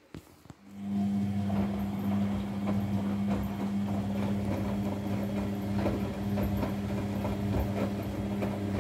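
Front-loading washing machine starting up: two clicks, then a steady motor hum from about a second in as the drum turns, with wet laundry tumbling and water sloshing inside it.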